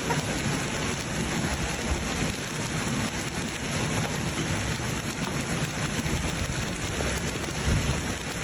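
Heavy hailstorm downpour: a steady, dense noise of rain and hail pelting down, with a fluctuating low rumble underneath.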